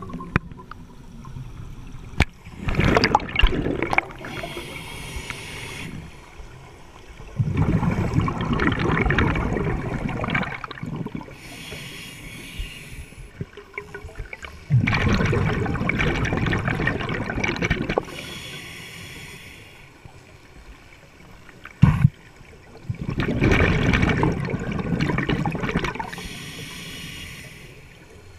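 A scuba diver breathing through a regulator underwater: a hissing inhale, then a long rush of exhaled bubbles, repeated four times about every six to eight seconds. A couple of sharp clicks fall between breaths.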